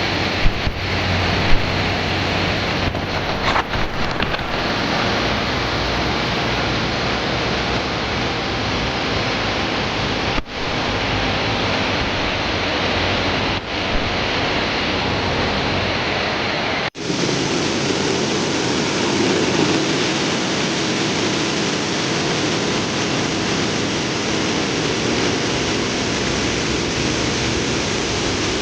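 Steady rush of falling water from a waterfall, with a few knocks in the first seconds. The sound drops out briefly three times, and after the last break it is a little deeper.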